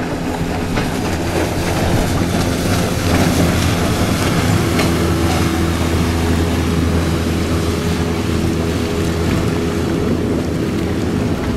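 A motorboat's engine running steadily at speed, with wind and rushing water over it.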